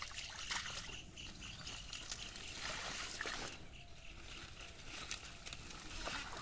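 Shallow muddy pond water trickling and splashing lightly, with small irregular splashes, as hands and bare feet move through it among water hyacinth plants.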